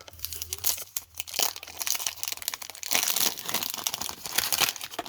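Wax-paper wrapper of a 1991 Topps baseball card pack crinkling and tearing as the pack is opened: a dense run of crackles that cuts off abruptly near the end.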